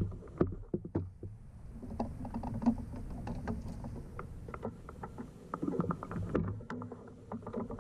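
Irregular clicks and knocks of a Gatlin rotating rod holder and the fishing rods in it being turned by hand on a kayak, over a steady low rumble.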